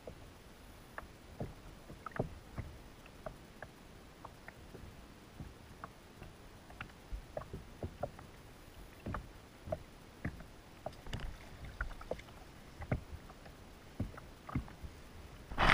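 Small waves slapping and knocking irregularly against a kayak hull, a few soft slaps each second, with a louder burst of noise near the end.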